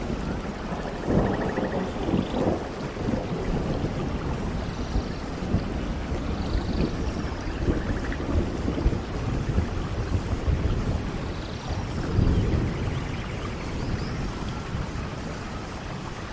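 Rainforest thunderstorm: steady heavy rain with low rolling thunder, swelling about a second in and again around twelve seconds.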